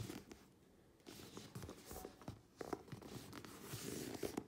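Hands handling a vintage Louis Vuitton Trousse 28 coated-canvas pouch: faint, scattered rustles and soft taps, with a near-quiet pause about half a second in.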